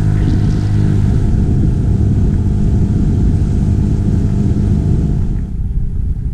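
Outboard motor of an inflatable boat running steadily under way, with wind and water rushing over it; the higher rushing eases off about five and a half seconds in.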